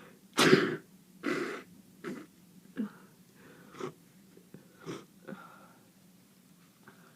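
A person with a heavy head cold sneezing: one loud sneeze about half a second in, a second strong one just after a second in, then a string of shorter, weaker bursts that die away over the next few seconds.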